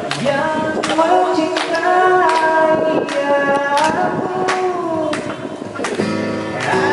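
A man singing long held notes into a microphone, accompanied by acoustic guitar strummed on a steady beat about every three-quarters of a second.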